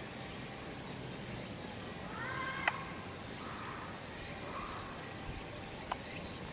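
A steady high insect chorus over outdoor background hiss. A short rising call a little after two seconds in, and two sharp clicks, one just after it and one near the end.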